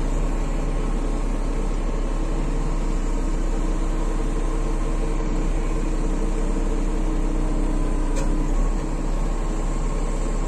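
A heavy engine running steadily at idle, with a light click about eight seconds in.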